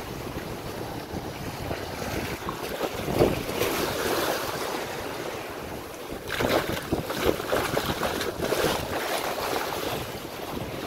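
Shallow surf washing and foaming over sand, with wind buffeting the microphone. About six seconds in, a louder stretch of splashing rushes.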